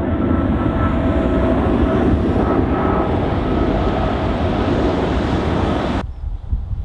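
Jet airliner engines running loud and close: a broad rushing noise with a steady whine over it. About six seconds in it cuts off abruptly, leaving only low wind rumble on the microphone.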